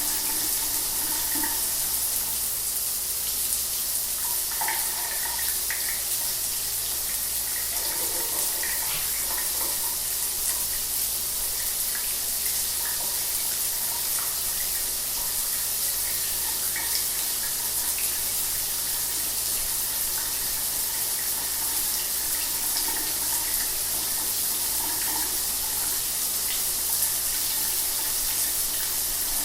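Shower water running steadily: an even hiss of spray with small splashing blips.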